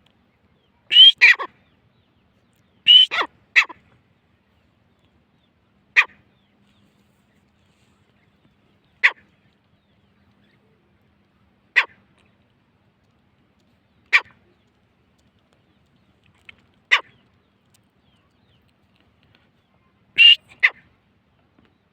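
Grey francolin (teetar) calling: two multi-note phrases in the first few seconds, then single short sharp notes about every three seconds, and a quick two-note phrase near the end.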